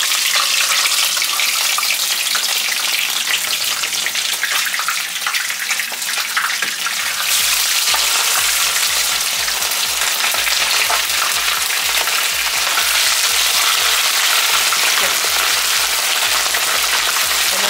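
Whole red snapper frying in a skillet of very hot oil, with garlic in it: a loud, steady sizzle that grows louder about seven seconds in.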